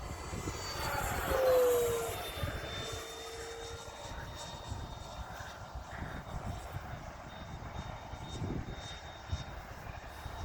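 80mm electric ducted-fan RC jet making a pass: its whine swells, peaks and drops in pitch about a second and a half in, then carries on fainter and steady. Wind buffets the microphone with a low rumble throughout.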